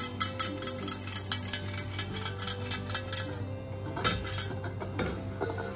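Background music with held notes and a quick ticking beat that fades about three seconds in. From about four seconds in come a few sharp metallic clinks as the stainless steel Saladmaster lid is lifted off the pan.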